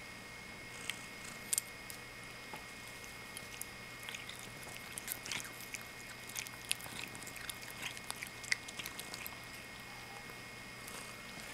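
Siamese cat chewing blades of wheatgrass: a run of small irregular clicks and crunches, thickest in the middle and dying away near the end.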